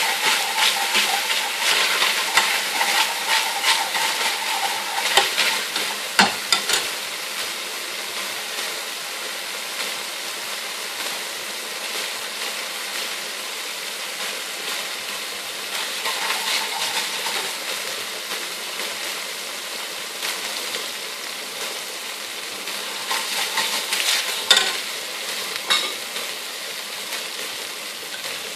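Oil and tomato purée sizzling in an aluminium pan, stirred and scraped with a metal spoon. The stirring stops about six seconds in with a couple of sharp knocks of spoon on pan, leaving a steady sizzle; the spoon stirs again later, with more knocks near the end.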